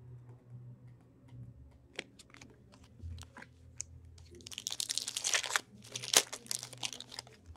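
Foil trading-card pack wrapper being handled and torn open: a few light rustles and clicks, then a burst of crinkling about four and a half seconds in that lasts nearly three seconds.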